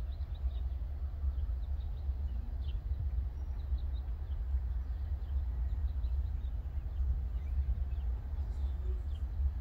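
Small birds chirping faintly and repeatedly over a steady low rumble.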